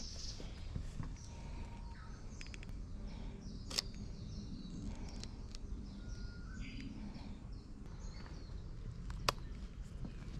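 Two sharp shutter clicks from a Sony α7S III mirrorless camera, about five and a half seconds apart, over birds chirping and a steady low outdoor rumble.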